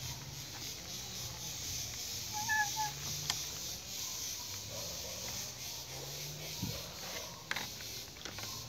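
Quiet outdoor background with a steady hiss, a few light clicks, and a short bird chirp about two and a half seconds in.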